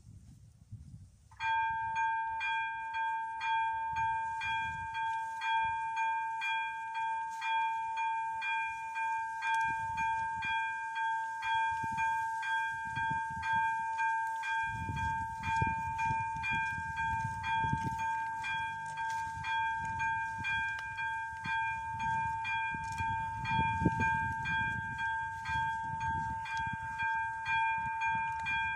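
AŽD 71 level-crossing warning signal's electronic bell starts about a second and a half in and keeps ringing in fast, even strokes. This is the crossing warning that a train is approaching.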